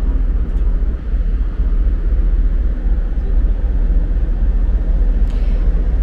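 Steady low rumble of the MS Chi-Cheemaun car ferry's engines as the ship docks.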